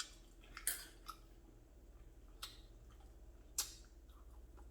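Faint mouth clicks and smacks from someone chewing food: about five short, sharp clicks at irregular intervals.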